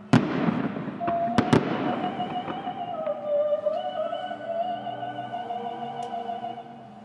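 Firework shells bursting: one sharp bang just after the start, trailed by crackling, then two more bangs in quick succession about a second and a half in. Music plays throughout, with a long held, wavering melody.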